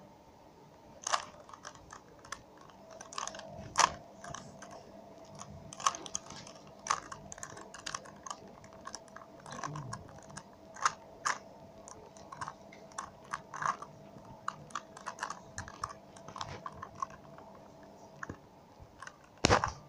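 A plastic 3x3 Rubik's cube being turned by hand: irregular quick clicks and clacks as the layers are twisted round, some in fast runs, with a louder clack near the end.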